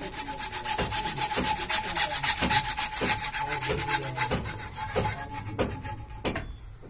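Hacksaw cutting through a CPVC plastic water pipe: a steady back-and-forth rasp, about three strokes every two seconds, with a thin steady ringing tone under it. The sawing stops shortly before the end.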